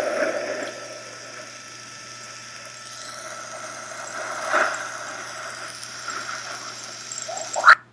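Induction magnetometer data sped up into audio: a steady, noisy background hum with faint bands of pitch in it, the multi-line geomagnetic pulsation background. It is louder for the first second, swells briefly in the middle, then cuts off abruptly near the end as the playback stops.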